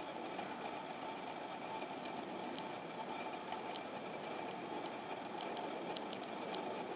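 Steady rumble of a distant ED2T electric multiple unit approaching, with a few faint clicks.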